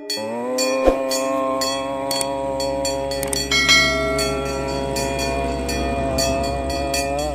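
A dramatic sound effect: a long, horn-like sustained chord that slides up in pitch at its start and then holds steady, with fast irregular clicking over it.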